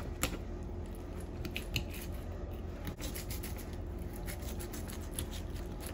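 Fillet knife cutting into a large peacock bass behind the gill, with faint, scattered scratchy clicks as the blade works through the fish, over a steady low hum.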